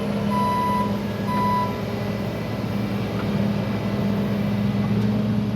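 Diesel engine of a piece of heavy equipment running steadily while its reversing alarm beeps twice, about once a second, then stops about two seconds in.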